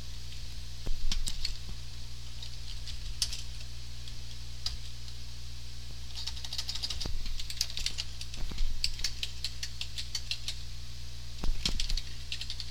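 Typing on a computer keyboard: single keystrokes and short quick runs of clicks at an uneven pace, busiest from about six seconds in and near the end. A steady low hum runs underneath.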